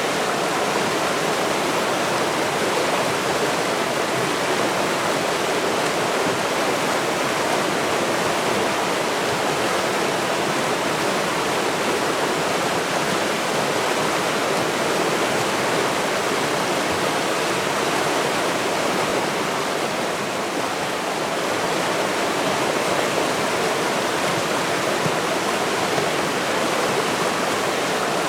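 River water rushing in a steady, even wash of noise.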